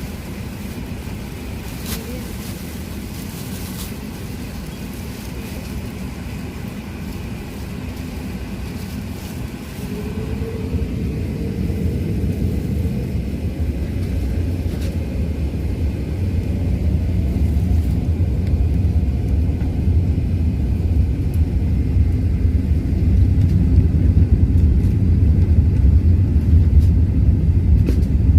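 Airbus A380 cabin noise: a steady low rumble that grows steadily louder from about a third of the way in, with a faint whine rising in pitch as the engines power up.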